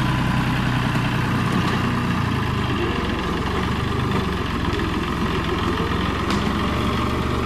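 John Deere 5065 tractor's diesel engine running steadily while it pushes a large tree chunk over, its low note shifting a little with the load.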